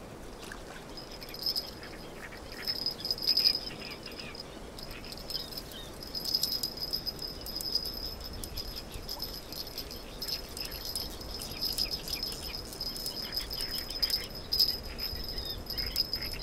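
Insect trilling steadily at a high pitch from about a second in, with faint scattered clicks under it.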